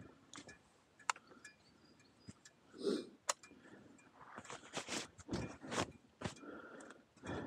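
Boots scuffing and crunching on a dirt and gravel trail, a cluster of steps between about four and a half and six and a half seconds in, with a short grunt-like breath about three seconds in and a few small clicks.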